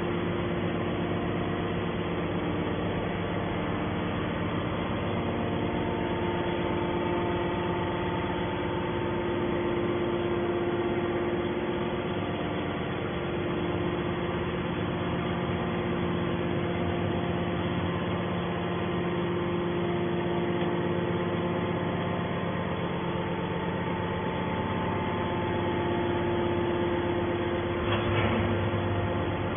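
Hydraulic metal scrap baler running: a steady motor-and-pump hum with several held tones, and a brief louder patch near the end.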